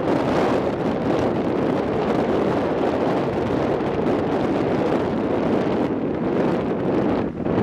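Airbus A310-325's Pratt & Whitney turbofan engines running at low taxi power, a steady rushing noise, mixed with wind buffeting the microphone.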